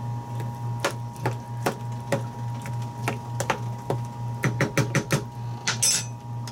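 Kitchen things handled on the galley counter: a string of light clicks and taps, quickening into a fast run of clicks about four and a half seconds in, over a steady low hum.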